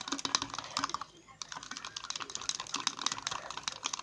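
Hands squishing and kneading thick homemade hand-soap-and-salt slime: a dense run of rapid wet clicks and crackles, with a short lull about a second in.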